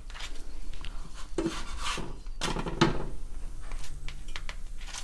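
Metal spoon spreading tomato sauce across a chapati on a wooden chopping board: a series of soft scraping strokes, the two loudest in the middle.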